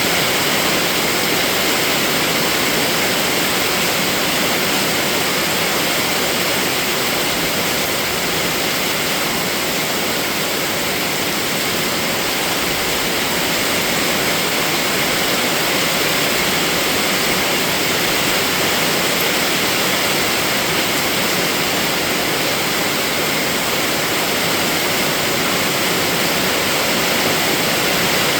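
Steady rain: a dense, even hiss of rainfall that holds at one level throughout, with no separate drops, thunder or other events standing out.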